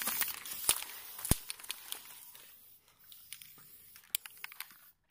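Crackling, rustling handling noise with many sharp clicks, fading away over the first few seconds and leaving only a few scattered clicks.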